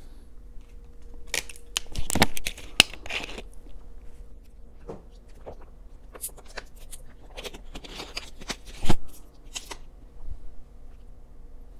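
Thin plastic water bottle crackling and clicking as it is handled and drunk from, in two clusters of sharp crinkles, with a loud thump about nine seconds in as it is set back down on the table.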